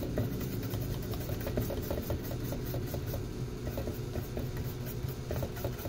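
Steady low machine hum with faint, irregular ticking over it.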